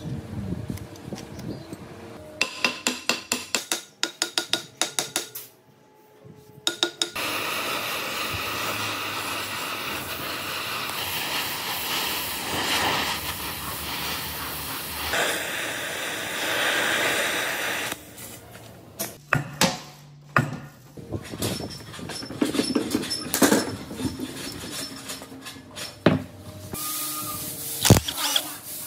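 Gas torch flame hissing steadily as it heats the hub of a cast-iron engine pulley held in a gear puller, to free it from the shaft. Before it comes a quick run of sharp metallic knocks, and after it scattered metal clinks and knocks from tools, with one sharp impact near the end.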